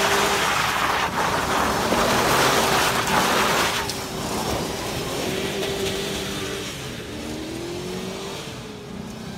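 Pickup truck engine running hard while its rear tire spins on dirt and grass, with a loud rushing tire noise that drops away suddenly about four seconds in. The engine note then rises and falls and fades as the truck moves off.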